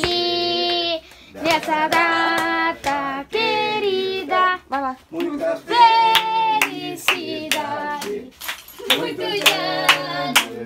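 Several people clapping in time to a sung song, with a voice singing clear, held notes in phrases.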